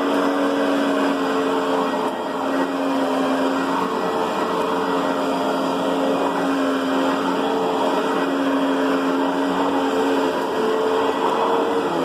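Riccar Brilliance upright vacuum cleaner running steadily, a constant motor hum over a dense rush of air, with the hum's pitch shifting slightly as it works.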